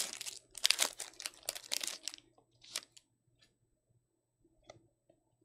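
Foil wrapper of a Panini Prestige football card pack crinkling and tearing as it is ripped open, in quick bursts for about two seconds, then a few faint ticks as the cards are handled.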